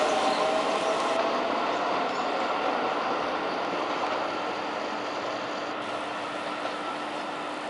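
Keio 8000 series electric train pulling out and drawing away, its running noise fading steadily as it recedes. A faint steady hum lies underneath.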